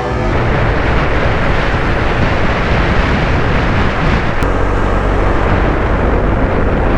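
Steady rush of wind and road noise from riding a Honda Vario 160 scooter.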